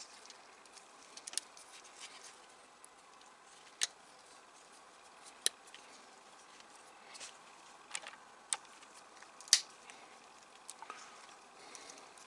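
Small plastic model-car parts being handled and pressed together by gloved hands: a scattering of sharp clicks and taps, about seven of them at uneven gaps, the loudest about three quarters of the way through, over faint handling rustle.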